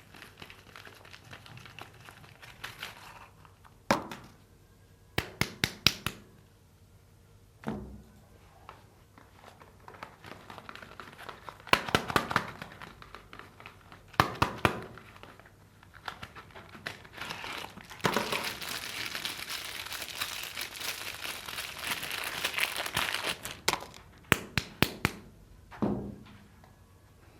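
Soap bar wrappers being torn and crinkled open by hand. There are clusters of sharp crackling clicks several times, and a longer stretch of continuous crinkling about two-thirds of the way through.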